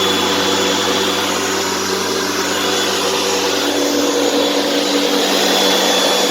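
Bavaria electric lawn mower's motor running steadily at full speed, its armature turning freely on newly replaced bearings after having been seized.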